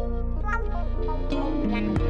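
Background music: a track with a deep bass and a steady beat, with guitar-like plucked notes.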